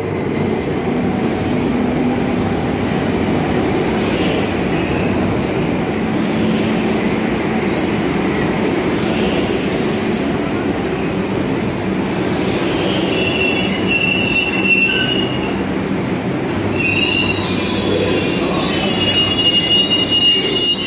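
New York City Subway R62A train pulling into an underground station: a steady rumble of steel wheels on the rails with a few sharp clanks over track joints. High-pitched wheel squeals start about two-thirds of the way in and come back near the end as the train brakes along the platform.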